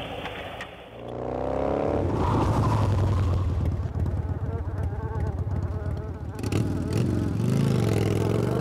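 Motorcycle engine revving up about a second in, then running with a steady low throb, and revving up and down again near the end.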